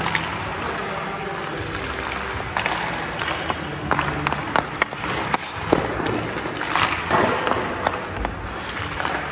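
Hockey skates scraping on rink ice, with a run of sharp clacks as a stick blade strikes pucks and pucks hit. Most of the clacks fall between about two and a half and seven seconds in.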